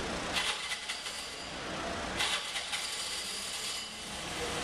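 Two spells of rapid rattling clicks, one near the start and a longer one from about two seconds in, over a low steady street rumble.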